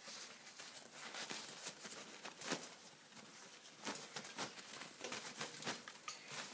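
Paper towel rustling and scraping against wire cage bars as it is pushed through them, with irregular sharp ticks from the bars, the sharpest about halfway through.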